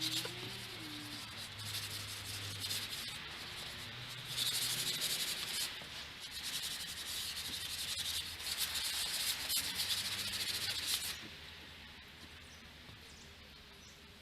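Scratchy rubbing strokes on wood as paint is brushed and wiped onto a deck rail, coming in uneven bursts and stopping about eleven seconds in. A faint low hum runs underneath.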